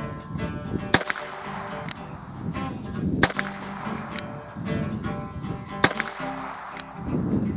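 Ruger Wrangler .22 LR single-action revolver fired four times, sharp cracks spaced one to two and a half seconds apart, over background guitar music.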